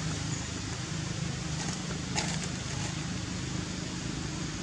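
Steady low engine hum under an even outdoor hiss, with a few faint short clicks about two seconds in.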